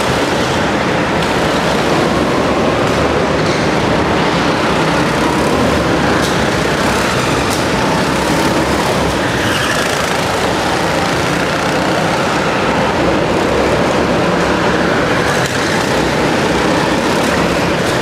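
Go-kart engines running on an indoor track as karts lap past, a loud steady mechanical din with no single pass standing out, inside a large karting hall.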